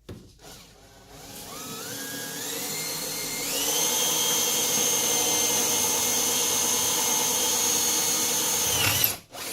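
Old Hitachi electric drill drilling a hole to be tapped for an 8-32 screw. It winds up to speed as a rising whine over the first few seconds, then runs steadily. Near the end it cuts off suddenly and starts again.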